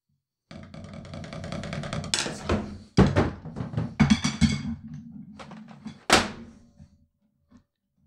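A short drum fill: a fast roll builds for about a second and a half, then comes a run of loud hits, and a last ringing hit about six seconds in, over a low steady tone.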